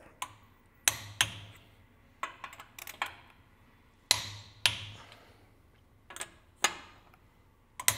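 Large click-type torque wrench, set to 85 foot-pounds, clicking as it reaches torque on a wheel's lug nuts. A series of sharp clicks a second or more apart, with a run of lighter, quicker ticks in between.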